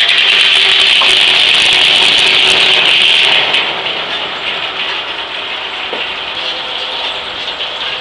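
Steam-driven 1880s Gaar Scott circular sawmill finishing a cut through an ash log: the blade's loud high sawing noise drops off about three and a half seconds in. The blade then spins free over a quieter mechanical clatter of the carriage.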